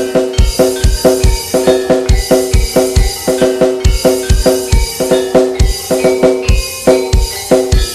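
Fast Javanese karawitan gamelan music remixed over a heavy electronic drum beat: repeated metallophone tones ring over a steady, fast run of deep kick-drum thumps with snare and hi-hat.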